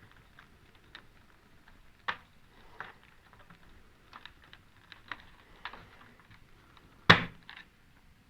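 Scattered light clicks and taps from handling the parts of an opened LED TV's backlight, with one louder knock about seven seconds in.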